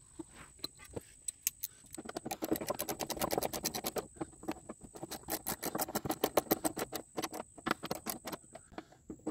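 Ratchet wrench on a socket extension clicking in quick runs as it drives in the long bolts of a mower's belt guard, with some scraping of metal and hands on the deck.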